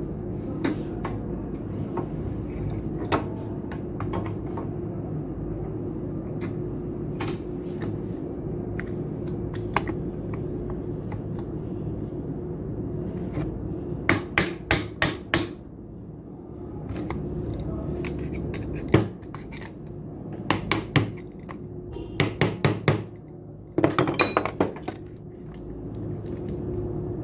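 Hammer striking the metal parts of a submersible pump being dismantled, in quick runs of four to six sharp metallic taps with pauses between, beginning about halfway through. A steady low hum runs underneath.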